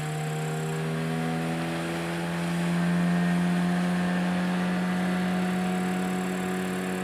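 Small two-stroke outboard motor running at high revs as the boat planes, a steady drone whose pitch climbs for the first few seconds and then holds.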